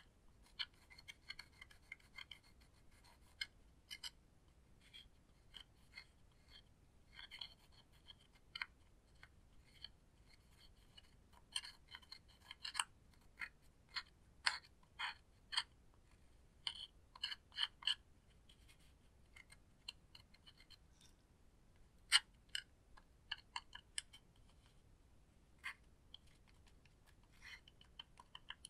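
A metal-tipped tool scraping and picking at pressed red eyeshadow in a plastic compact: irregular small scratches and clicks, some in quick runs, with short pauses between.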